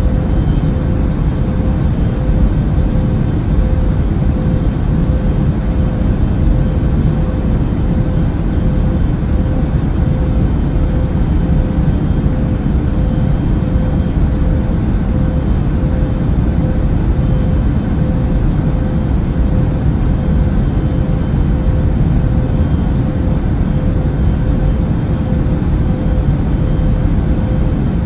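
Airbus A380 cabin noise at cruise: a steady, unchanging low rumble of engines and airflow, with a constant hum riding on top.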